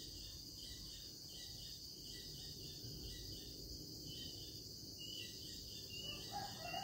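Faint, steady high-pitched insect chirring, with a brief faint mid-pitched sound near the end.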